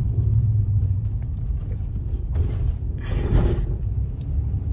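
Steady low rumble of a car's cabin while driving slowly, with two short jolts about two and a half and three and a half seconds in, the second the louder, as the car rolls over a speed bump.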